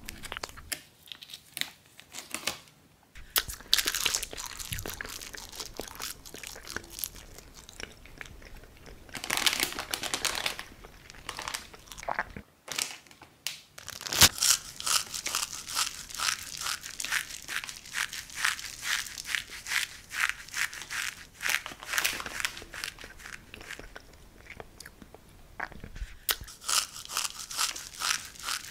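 Plastic instant-noodle wrapper crinkling and tearing as it is handled, with the dry raw noodle block crunching; many short crackles, thickest through the middle.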